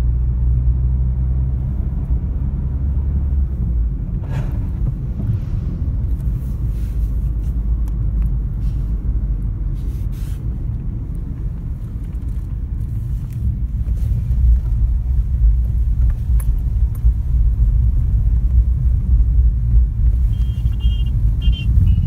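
Low rumble of a car driving, heard from inside the cabin, with a couple of brief jolts; the rumble turns rougher and louder about two-thirds of the way through.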